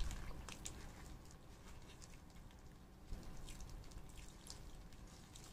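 Plastic-gloved hands pulling apart a roasted chicken in a foam takeout box: faint crinkling of the gloves and small wet crackles and clicks, with a soft knock near the start and another about 3 seconds in.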